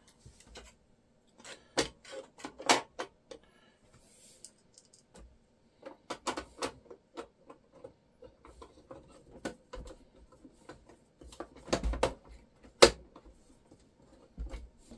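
Metal top cover of a vintage video recorder being handled and screwed back on with a screwdriver: irregular clicks, taps and knocks of metal and screws, the loudest a sharp knock near the end.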